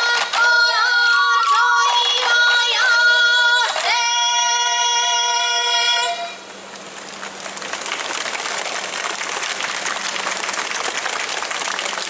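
A traditional Sansa song, a woman's high singing voice with a bamboo flute, holds its last notes and breaks off about six seconds in. A crowd then claps steadily.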